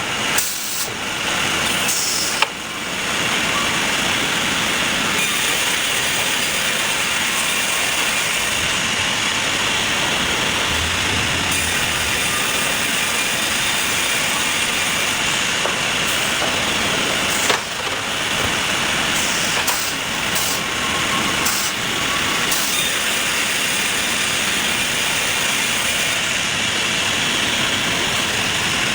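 Sawmill machinery running with a steady, loud hissing noise, broken by a few sharp knocks and clunks, about a second apart early on and again near the middle.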